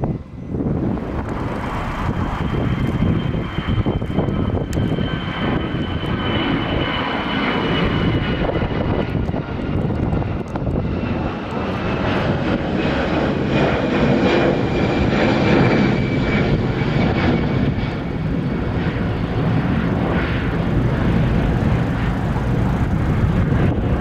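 Airbus A320-family airliner's twin jet engines at takeoff power during climb-out: a loud, steady rumble with a faint high whine slowly falling in pitch.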